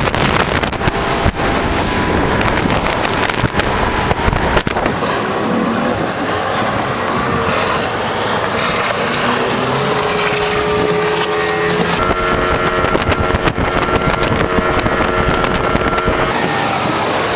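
Yamaha 200 HPDI two-stroke V6 outboard driving a rigid inflatable boat at speed, with the rush of water and wind. Heavy wind buffets the microphone for the first few seconds, after which the engine's steady, slightly rising pitch comes through more clearly.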